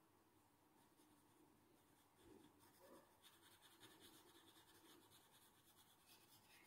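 Very faint scratching of a graphite pencil shading on paper, barely above silence.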